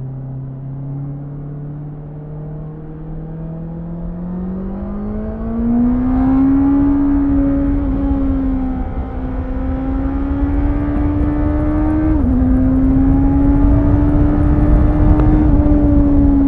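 2018 Honda CBR650F's inline-four engine pulling hard under acceleration, its pitch climbing steadily for a couple of seconds and then holding high with brief dips, over rising wind and road noise.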